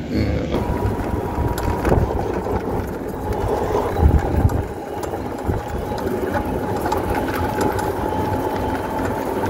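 Golf cart driving along: a steady low rumble of the moving cart with a faint steady whine, swelling louder about four seconds in.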